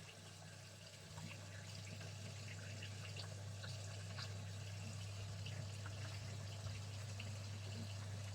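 Tap water running into a Thetford C250 toilet cassette to rinse it out, with scattered drips and splashes over a steady low hum that gets louder about a second in.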